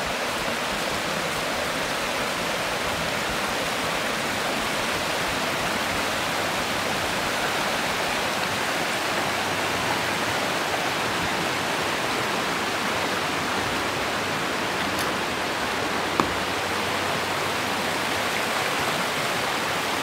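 A rocky mountain stream rushing steadily below a suspension footbridge, an even, unbroken wash of water noise, with one brief click about three-quarters of the way through.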